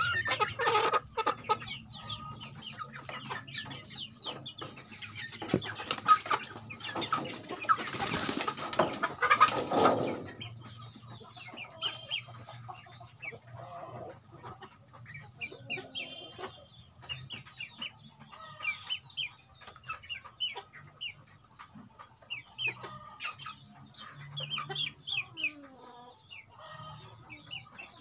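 Flock of young Indonesian native chickens (ayam kampung) clucking, with many short calls overlapping one another. There is a louder stretch of noise lasting a few seconds about a third of the way in.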